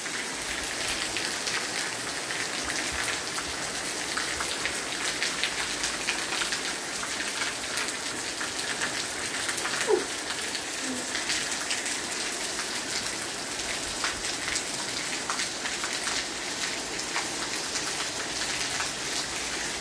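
Steady rain falling on a concrete yard, an even hiss full of small drop patters. About halfway through comes one short sound that falls in pitch.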